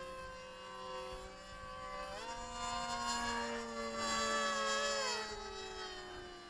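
Electric motor and propeller of a radio-controlled model plane whining in flight. About two seconds in the pitch steps up and it grows louder, then near the end the pitch slides down and it fades a little.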